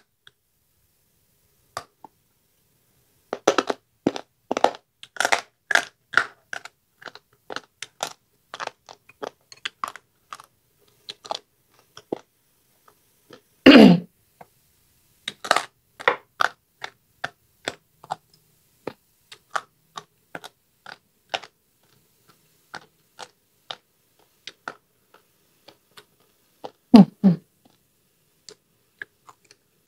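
Close-up chewing of fried pork (thịt ram): a rapid, irregular run of crisp crunches and wet mouth clicks. There are two brief louder sounds, about 14 seconds in and again near the end.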